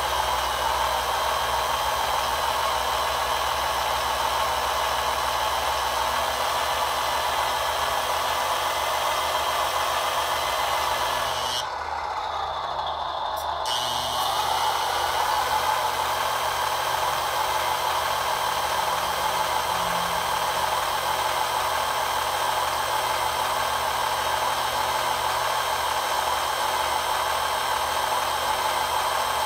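Electric hydraulic pump of a ScaleART RC Palfinger loader crane running steadily while the crane boom lifts and telescopes out; about twelve seconds in its pitch sags briefly, then recovers.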